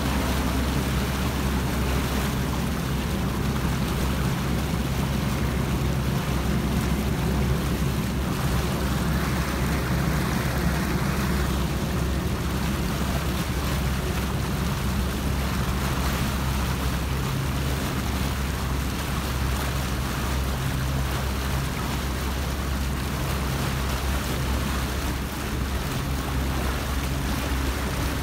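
Motorboat engine running steadily at speed under the rush of wake water and wind, heard from aboard the moving boat. Near the end a second engine note joins as another powerboat comes close alongside.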